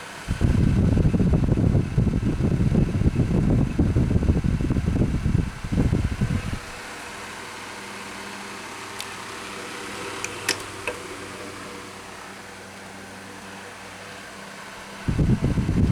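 Galaxy 9-inch oscillating table fan running on high: a steady motor hum, with a loud gusty rumble as the oscillating head sweeps its breeze across the microphone for about the first six seconds and again near the end. A few light clicks come about ten seconds in.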